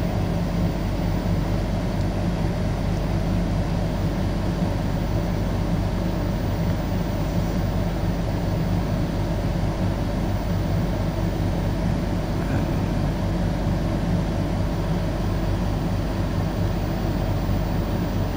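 Steady low machine hum, a fan or air-conditioner type drone with a constant buzz of evenly spaced low tones, unchanging throughout.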